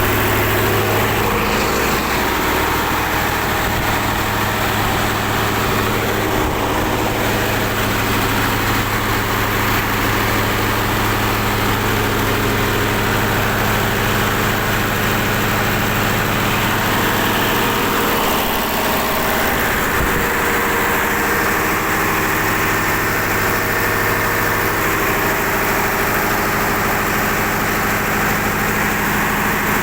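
Mitsubishi 8DC11 V8 diesel engine of a 300 kVA generator set running steadily at a constant speed.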